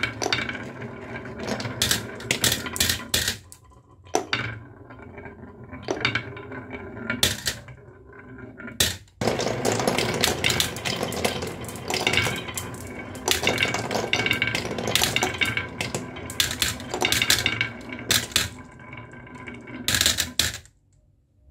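Glass marbles rolling and clicking down a wooden wavy-groove ramp and dropping one after another into a toy truck's cargo bed, clattering against each other as the bed fills. The clatter cuts off suddenly near the end.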